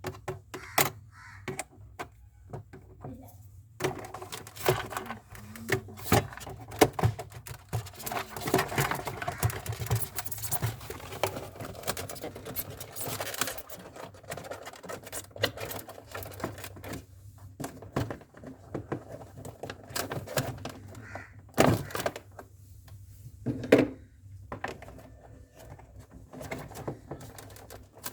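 Irregular clicks, taps and rattles of small parts and tools being handled, with a few louder knocks near the end.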